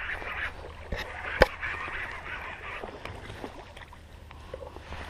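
Spincast fishing reel being cranked as a hooked largemouth bass is reeled in, with water splashing around the fish and two sharp clicks about a second in. A low rumble runs underneath.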